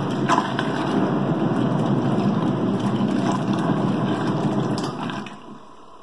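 Praxis Petit 1.2 kg mini washing machine agitating a load of clothes, its motor running and the water churning in the tub, until it stops about five seconds in.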